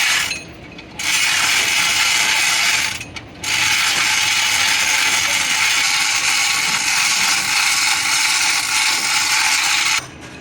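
A power tool working on metal, a loud rattling hiss in three runs: a short burst at the start, a run of about two seconds, and a long run of about six seconds that cuts off sharply near the end.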